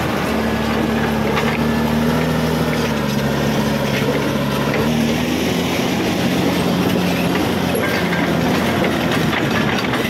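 Caterpillar D6R XL bulldozer at work: its diesel engine runs steadily under load, the pitch sagging slightly partway through and recovering, with the steel tracks clanking as it pushes earth and rock.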